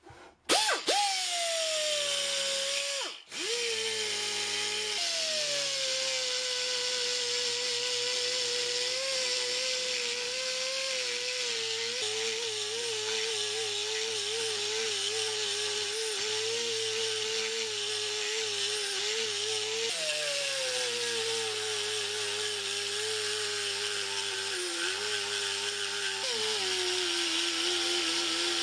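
Die grinder with a pointed rotary burr grinding down a fresh weld on a steel kickstand: a steady high whine that cuts out briefly about three seconds in, then drops in pitch each time the burr is pressed into the metal.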